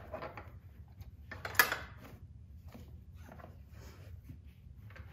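A car seatbelt being pulled free of a child car seat and fed back toward its retractor: webbing rustling and small plastic knocks, with one sharp clack about a second and a half in.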